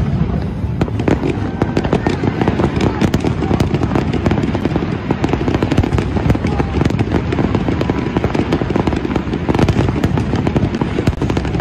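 Aerial fireworks going off in rapid succession: a dense, unbroken run of shell bangs and crackling.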